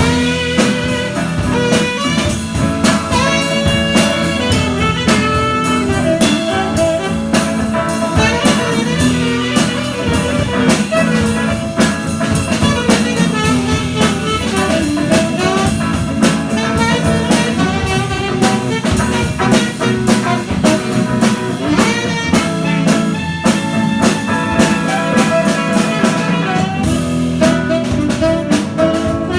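Saxophone and guitar improvising jazz together, with a drum kit keeping up dense, busy strokes underneath.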